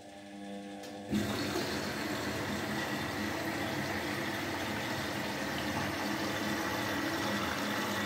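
Indesit front-loading washing machine: a low machine hum, then about a second in a sudden steady rush of water as the inlet valve opens and the machine fills.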